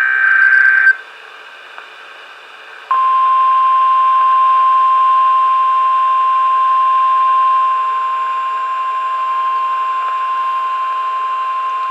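NOAA Weather Radio emergency alert: the end of a SAME data burst, a warbling two-tone screech, then about two seconds of radio hiss, then the warning alarm tone, one steady high tone held for about nine seconds, which announces that a warning is about to be read.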